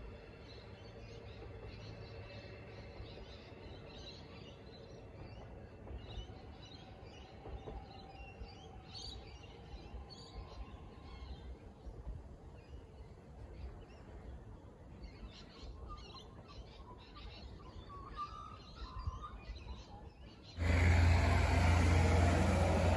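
Birds chirping and calling over a faint low hum. Near the end it cuts suddenly to a loud rush of broad noise with a heavy low rumble.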